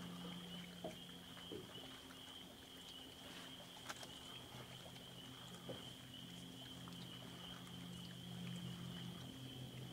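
Faint evening lakeside ambience: a steady, high-pitched animal chorus over a low hum that begins to pulse near the end, with a few small clicks.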